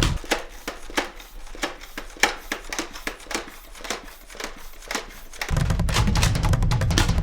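A run of quick, irregular clicks and snaps, typical of Nerf blasters being cocked and fired. About five and a half seconds in, drum-heavy backing music comes back in.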